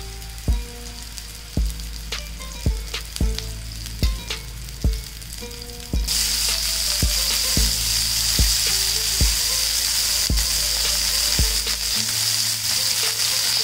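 Minced-chicken seekh kebabs sizzling in oil on a ridged grill pan. The sizzle jumps much louder about six seconds in, over background music with a steady beat.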